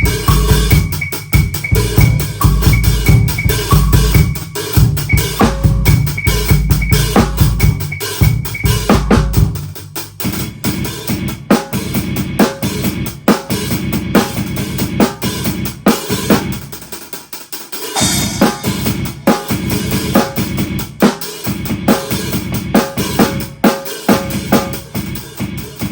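An old drum kit played solo, mixed with electronic drum sounds. For about the first ten seconds, deep sustained electronic bass hits dominate, with a repeating high blip. After that comes a busier kick, snare and rimshot groove, which briefly drops away before a cymbal crash about eighteen seconds in.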